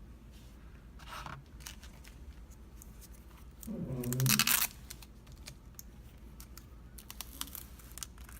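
Packaging being handled and torn open: one loud tearing rip lasting about a second near the middle, with lighter rustles before and after.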